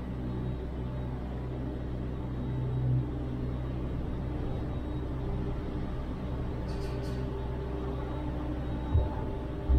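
Gondola lift station machinery humming steadily as a cabin rolls slowly through the station, with a couple of low knocks near the end.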